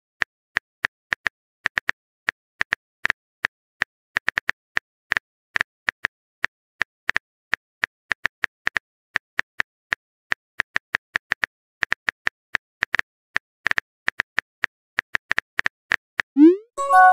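Phone keyboard tap sound effects from a texting-story app, short clicks at an irregular pace of about three to four a second as a message is typed. Near the end a rising swoosh and a short chime of a few notes mark the message being sent.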